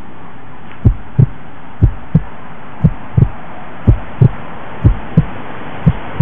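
Heartbeat sound effect: low thumps in even lub-dub pairs, about one pair a second, over a steady hiss.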